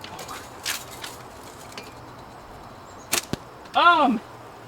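Sharp cracks of a BB gun and a slingshot shooting at cans: one about a second in, then a louder pair about three seconds in. A short wordless exclamation of a voice follows right after.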